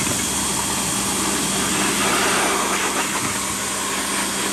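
Pressure washer running with a steady hum, its water jet blasting onto a plastic tub that holds a chainsaw crankcase, rinsing off degreaser.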